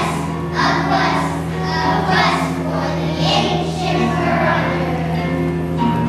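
A group of children singing together over a musical accompaniment.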